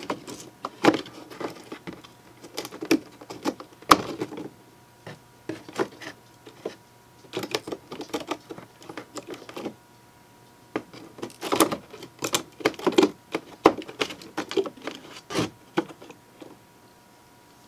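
Irregular light clicks and taps of a small N scale model log-loading ramp being pushed and pressed into place by hand against the layout scenery.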